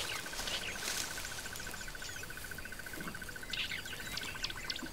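Bush ambience: birds chirping, with a cluster of calls near the end, over a steady, fast-pulsing trill held at one pitch.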